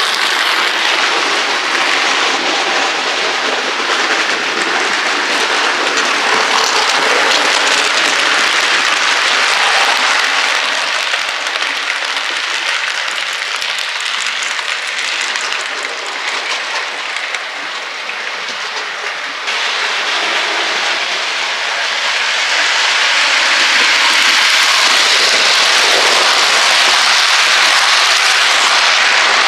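OO gauge model train running on the layout's track: a steady rattling hiss of metal wheels on rail, flecked with fine clicks. It changes abruptly about two-thirds of the way in and grows louder near the end as a train of coaches passes close by.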